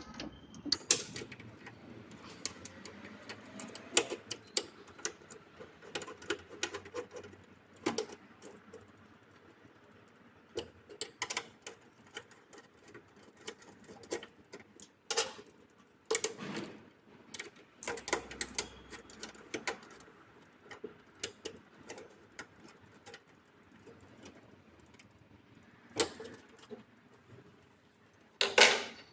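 Irregular clicks, taps and small rattles of cable ends and hand tools being worked at the terminals of a DC breaker as output cables are fastened in a solar PV combiner box, with a few sharper knocks scattered through.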